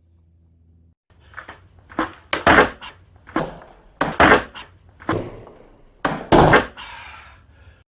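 Skateboard tricks on an indoor floor: a string of about a dozen sharp knocks as the wooden deck is popped and the board and wheels clack down on landings, each knock ringing briefly in the room.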